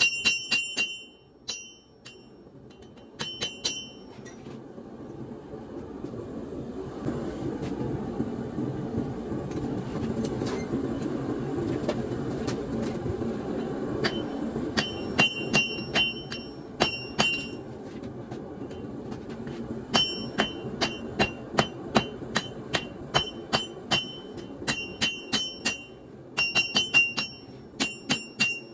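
Hammer blows on an anvil, forging leaf-spring steel, each strike ringing. A few strikes come at the start, then a steady rushing noise swells in the middle, and quick runs of ringing strikes come through the second half.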